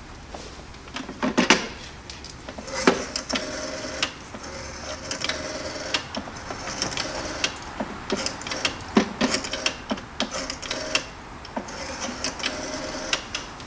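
Irregular mechanical clicking and clattering, with a few louder knocks about a second and a half in, at about three seconds and at about nine seconds.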